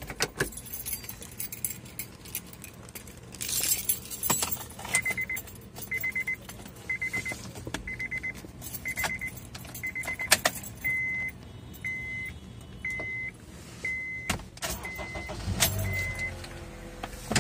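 Car warning chime beeping about once a second, a dozen short beeps at one pitch, with keys jangling and a few sharp clicks.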